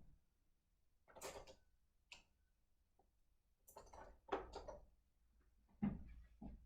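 Brief irregular handling sounds: a few soft clicks, taps and rustles, with a cluster of them around the middle.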